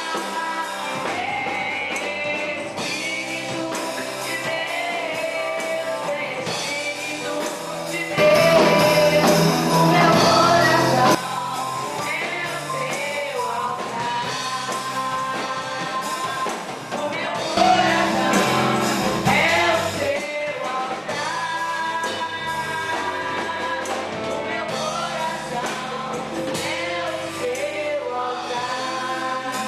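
Gospel worship song: singing over band accompaniment, with two louder passages, about eight and about seventeen seconds in.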